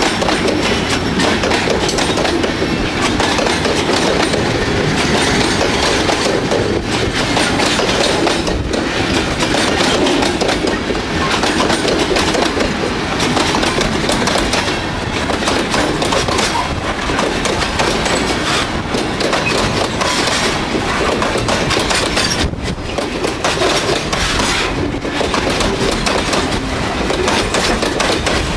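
Freight train of grain hopper cars rolling past close by: steady loud rumble of steel wheels on rail, with the clickety-clack of wheels crossing rail joints.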